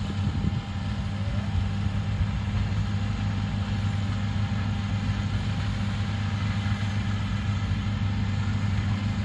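Combine harvester engine running steadily: a constant low drone with no change in speed.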